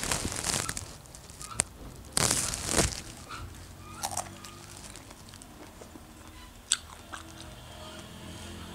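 A person biting into and chewing fresh strawberries close to the microphone: two louder crunchy bites in the first three seconds, then quieter chewing with a few sharp clicks.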